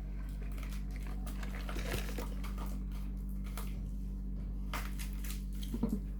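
Faint crinkling and scattered light clicks of parcel packaging being handled, over a steady low electrical hum.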